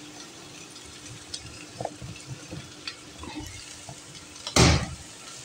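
Steel spoon stirring and scraping shredded chicken and onions in an aluminium karahi, with a soft sizzle of frying on a lowered flame and light scattered clicks. A sharper clatter of metal comes about four and a half seconds in.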